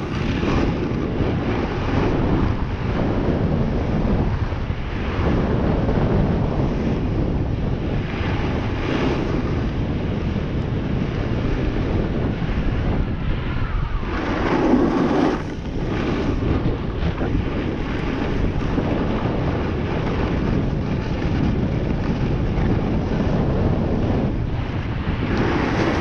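Wind buffeting the microphone over the steady hiss of sliding down a snow run. Louder swooshes rise every few seconds, the strongest about fifteen seconds in.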